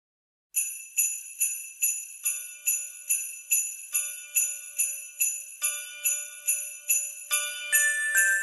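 Jingle bells shaken on a steady beat of a little over two a second, the intro of a Christmas music track, with ringing bell notes joining in after a couple of seconds and the sound building toward the end.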